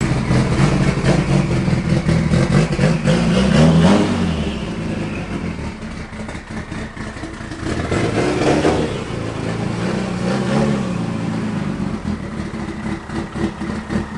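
Mitsubishi Lancer Evolution 8's turbocharged 4G63 four-cylinder engine running through a loud exhaust as the car rolls out of the garage. The revs rise and fall briefly a few times, and the sound drops back for a few seconds in the middle as the car moves off.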